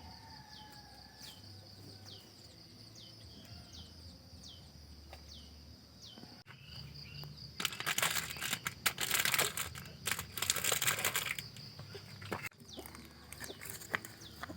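Crickets trilling steadily, with a bird repeating a short falling chirp about once a second. Midway a loud crackling rustle takes over for several seconds, then the cricket trill returns near the end.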